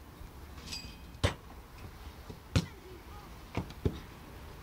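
Footballs being kicked: two loud sharp thuds about a second and a third apart, then two fainter kicks close together near the end.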